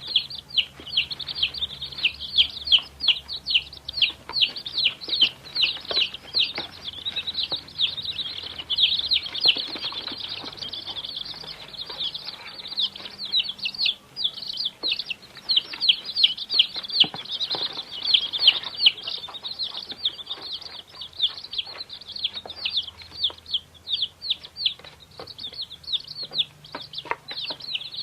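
Many domestic chicks peeping at once, a dense, continuous chorus of short high-pitched peeps.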